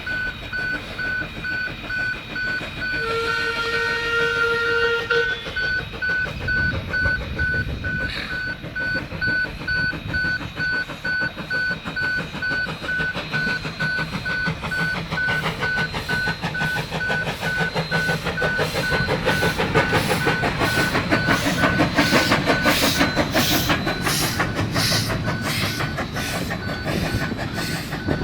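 Steam locomotive whistle sounding once for about two seconds, about three seconds in. The train then passes over the crossing with a rhythmic clickety-clack of wheels on rail joints that grows louder over the second half. Throughout, a level-crossing warning alarm beeps steadily about twice a second.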